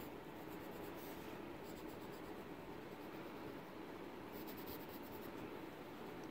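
Pencil scratching on paper in runs of quick, short strokes: about a second in, again just before two seconds, and around four to five seconds in.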